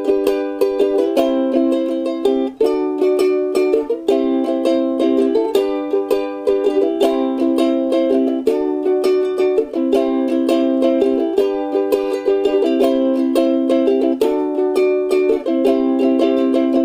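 Ukulele strummed steadily, cycling through a I–IV–V chord progression in G (G, C and D major chords), with the chord changing every second or so.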